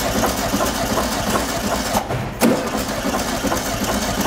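Starter cranking the air-cooled flat-four of a 1973 VW Beetle 1303 for a compression test, with a short break about two seconds in. The cylinder under test reads zero compression, which the mechanics take as a possible burnt valve.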